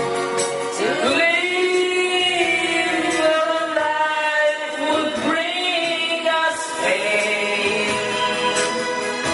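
A woman singing karaoke into a handheld microphone over backing music, in long held notes.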